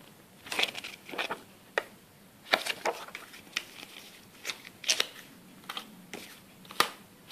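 Paper leaflets and a small photobook being handled and shuffled on a wooden table: scattered rustles, flicks and taps, with the sharpest tap near the end.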